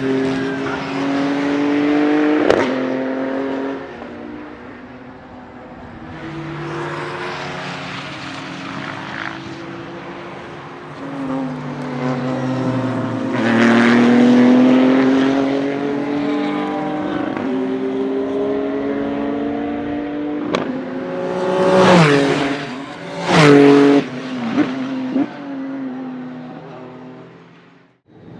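Ligier JS P4 race car's 3.7-litre naturally aspirated Ford V6 at full throttle, its pitch climbing through the gears several times over repeated passes. Sharp crackling blips and falling pitch come as it brakes and downshifts about three quarters of the way in, the loudest part, before the sound fades away at the end.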